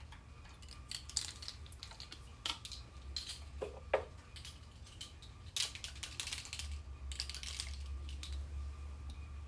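Scattered light clicks, taps and rustles of something being handled, with a brief squeak just before four seconds in and short rustling or scraping stretches over a low hum.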